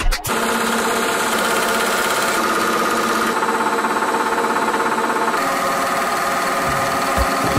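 Etirama SP1 blank-label die-cutting machine running: a steady mechanical hum with a fast, even pulse. It cuts in just after the start and gives way to music near the end.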